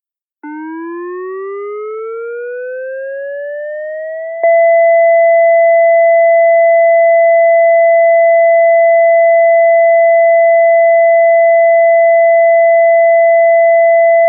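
ASC digital electronic siren controller's synthesized Alert signal, dry with no reverb: a siren tone winds up in pitch for about four seconds, then jumps louder and holds one steady pitch.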